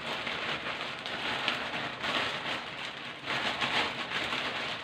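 Broth boiling in a large wok, a steady bubbling hiss, with a few louder rustling surges as dry pancit canton noodle nests are tipped in from a plastic bag.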